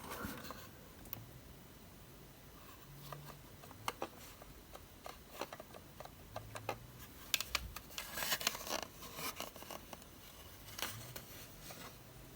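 Scattered light clicks, taps and scrapes of a model truck being handled, with a denser run of sharper clicks about two-thirds of the way through.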